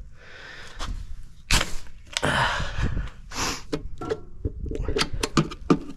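Handling noises: scattered knocks and clicks with short rustling stretches between them, and a quick run of clicks near the end.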